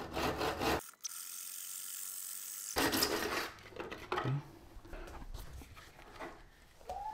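Hand saw cutting a door frame to length in a plastic mitre box: a run of irregular back-and-forth sawing strokes.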